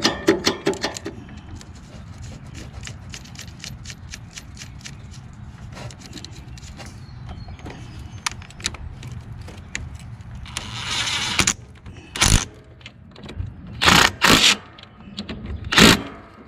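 Hands working on a lawn tractor's starter solenoid and its wiring: light clicks and small metal rattles, a brief scraping rasp about ten seconds in, then a few loud short knocks near the end.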